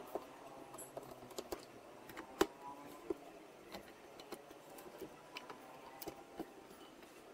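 Scattered light clicks and taps of hands handling a woofer and its frame in a Bose 301 Series V speaker cabinet, with one sharper knock about two and a half seconds in.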